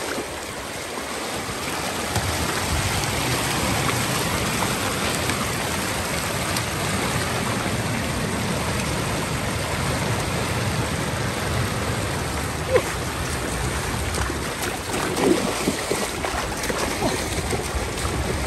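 Water flowing steadily with an even rushing noise. Two short, sharper sounds stand out in the second half.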